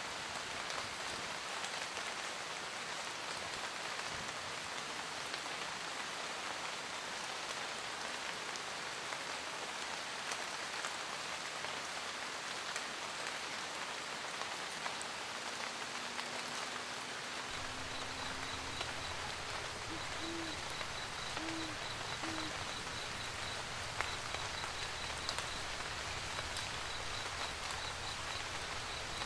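Steady rain pattering on a surface throughout. About two-thirds of the way in an owl hoots: a long low note, then three short hoots, while a low steady rumble comes in underneath.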